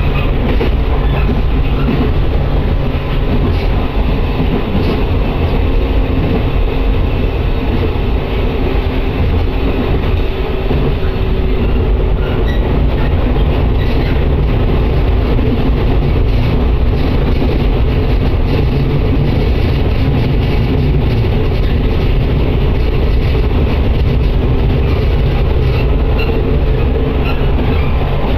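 A local train running at speed on the San'in Line, heard from inside the carriage as a steady, deep rumble of wheels and running gear.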